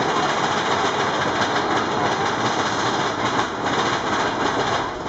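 Big Thunder Mountain mine-train roller coaster running through a dark tunnel, heard from aboard: a loud, steady noise of the cars' wheels on the track.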